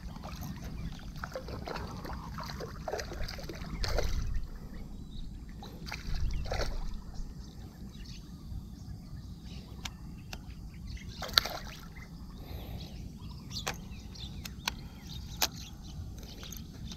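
Wind rumbling on the microphone while a baitcasting rod and reel are worked by hand, with scattered sharp clicks and knocks from the reel, mostly in the second half. A couple of louder rushes of noise come about four and six seconds in.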